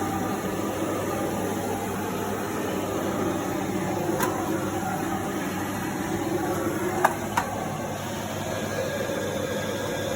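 Vacuum cleaner running steadily, with three sharp clicks about four, seven and seven and a half seconds in.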